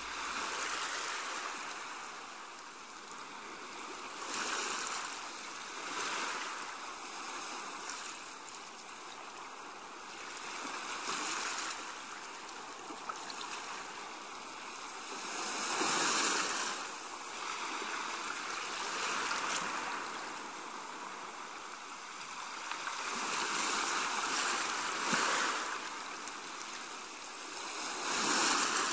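Small waves washing onto a beach, a hiss that swells and fades every few seconds.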